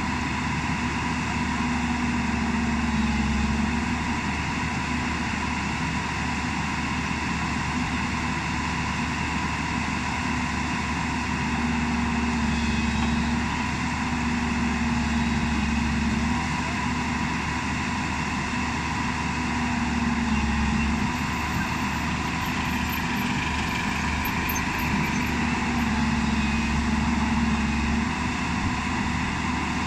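JCB 205 tracked excavator's diesel engine running steadily as the machine crawls up onto a low-bed trailer, the note swelling slightly a few times.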